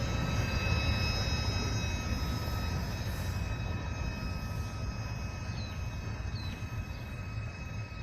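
Freight train rolling past on the rails: a steady low rumble that slowly fades, with faint steady high-pitched ringing tones above it.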